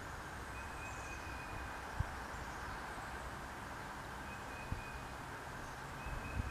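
Outdoor ambience: a steady hiss with a low wind rumble on the microphone, a few faint, thin high calls, and two small clicks.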